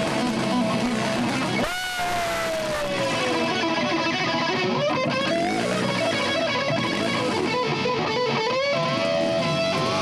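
Live rock band playing, led by distorted electric guitar; about two seconds in a single guitar note bends up sharply and slides slowly down in pitch.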